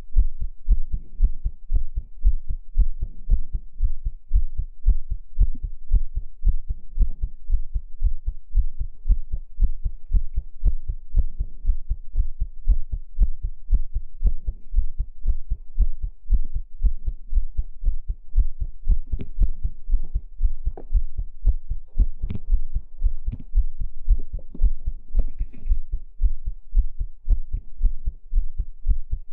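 Amplified heartbeat beating steadily and evenly, each beat a deep, low thump.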